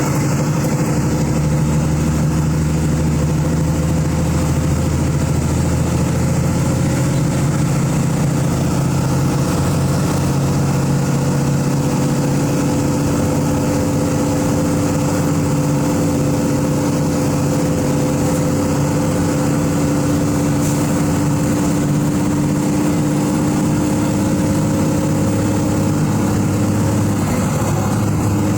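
Diesel engine of a Volkswagen 17.210 EOD bus chassis running at steady revs, its note sinking slightly over the stretch.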